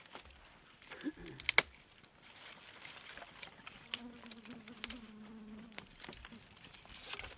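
An insect, such as a fly or bee, buzzing steadily for about two seconds near the middle. Before it, about a second in, come a few sharp clicks or knocks, the loudest near a second and a half in.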